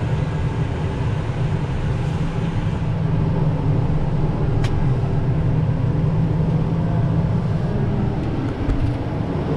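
Heavy vehicle's engine running steadily, a low, even rumble heard from inside the cab while driving.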